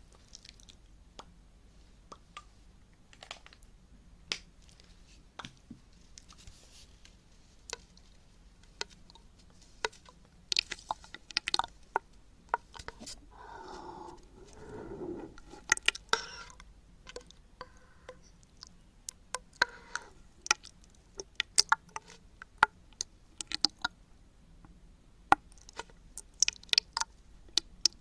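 Close-miked ASMR mouth sounds: many scattered sharp wet clicks and smacks, coming thicker in the second half, with a short breathy, murmured voice sound about halfway through.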